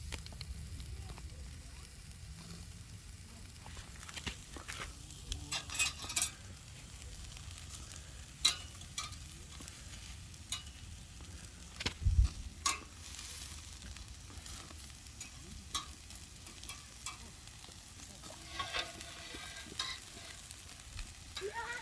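Pork neck sizzling as it grills over a wood fire, a steady hiss broken by frequent sharp pops and crackles. A low thump about twelve seconds in.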